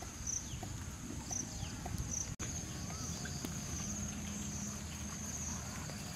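Outdoor field ambience: a steady high insect drone, pulsing at first and then continuous, with faint short bird chirps over a low rumble.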